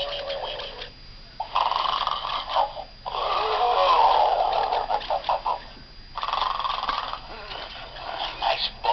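Snoring pig plush toy's built-in sound unit playing a recorded snore: three long snoring breaths about every three seconds, some ending in a few quick snorting pulses, with a wavering whistle-like tone in some breaths.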